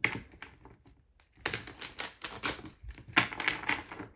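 A deck of oracle cards being shuffled by hand: a sharp knock at the start, then a rapid patter of card edges in two runs of about a second each, stopping suddenly.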